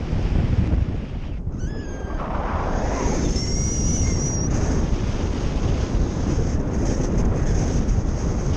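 Strong airflow buffeting the microphone of a camera on a paraglider in flight: a steady low rushing. A faint high whistle comes through briefly twice, about two and four seconds in.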